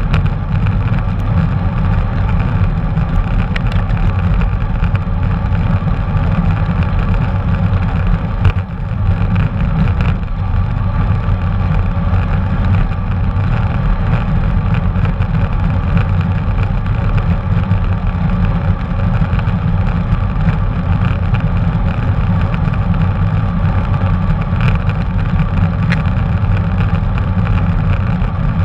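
Steady low rumble of wind and road noise on a GoPro camera's microphone while cycling, with a brief bump about eight seconds in.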